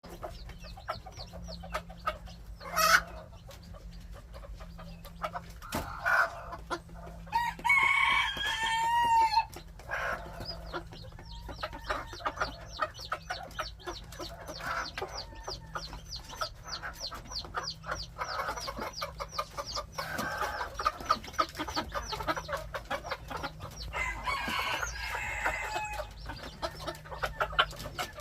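Gamefowl chickens clucking and calling while they feed, with rapid high peeps running throughout. A longer call, likely a rooster's crow, comes about eight seconds in.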